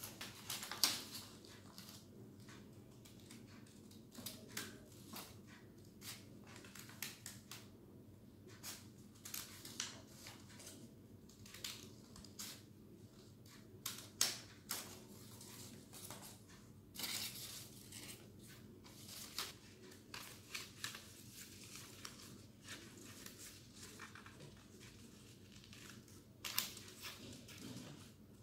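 Scissors snipping through paper in short, irregular cuts, with the sheet rustling as it is turned.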